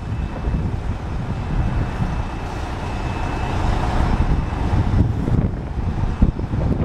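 Steam locomotive with its cylinder cocks open, blowing off steam in a steady hiss over a low rumble. The hiss swells a few seconds in.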